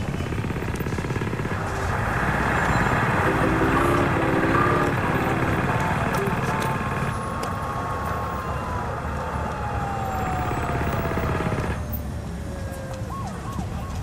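City street ambience: a steady rumble of traffic with snatches of voices. In the second half a long tone slides slowly downward.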